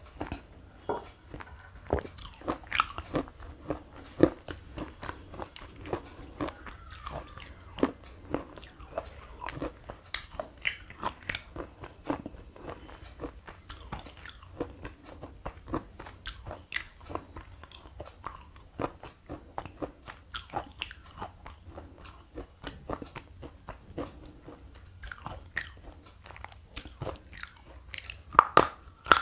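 Close-miked chewing of slate pencil, many sharp, irregular crunches a few times a second as the hard pieces break between the teeth. Near the end come louder crunches as a fresh slate pencil is bitten.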